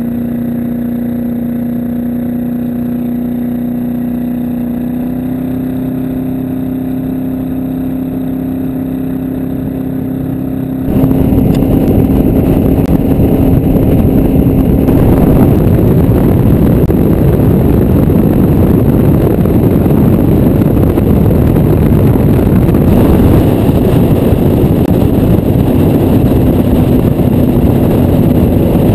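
V8 speedboat engine running at speed, a steady drone with water rushing past the hull. About eleven seconds in it turns suddenly louder and rougher, with heavy wind and water noise over the engine.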